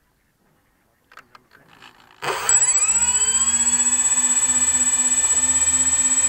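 Near silence for about two seconds, then a small electric motor on a radio-controlled boat starts suddenly. Its whine rises quickly in pitch and settles into a steady, slightly pulsing whine, with a thin high tone above it.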